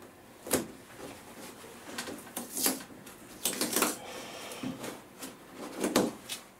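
Masking tape being pulled off the roll and torn in several short rips, with light clicks and taps between as the strips are taped down.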